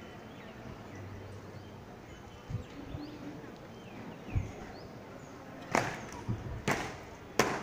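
Faint bird chirps over a low background, with a few soft thuds, then three loud, sharp cracks about a second apart near the end.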